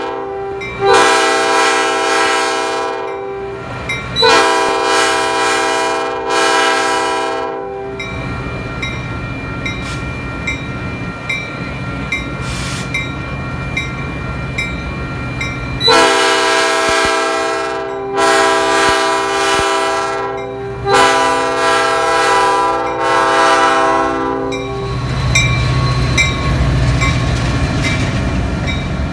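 Diesel commuter locomotive sounding its multi-note air horn in two series of long blasts, one about a second in and the other about sixteen seconds in, with a short blast near the end of each series. From about 25 seconds in, the double-deck passenger cars rumble past close by.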